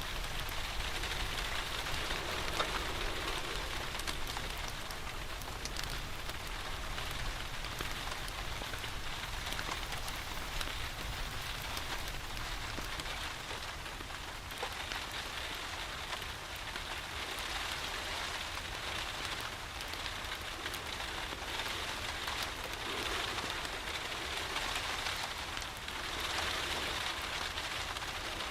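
Steady rain falling, with many small drops pattering, and a wood fire crackling in a fireplace underneath it in scattered little ticks.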